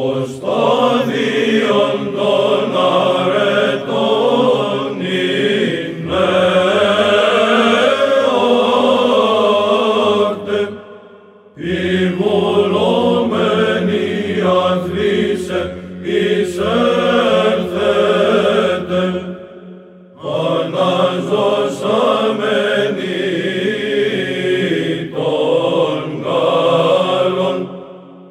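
A Byzantine Orthodox church choir chanting a Greek hymn unaccompanied, the melody moving over a low held drone. It comes in three long phrases, with a short breath-break about eleven seconds in and another about twenty seconds in.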